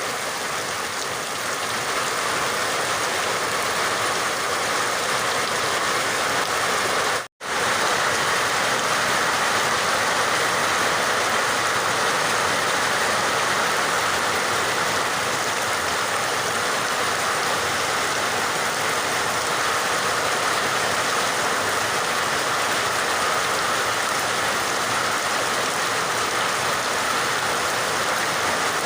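Steady, even rain hiss. It cuts out completely for a split second about seven seconds in, then resumes unchanged.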